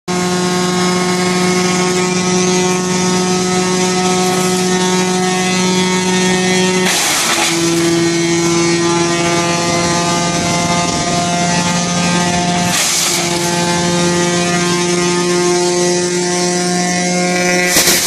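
1974 Wayne wood chipper running steadily, with short bursts of noise about 7 and 13 seconds in and again near the end as branches are fed through and chipped. Its engine note dips briefly after the first burst.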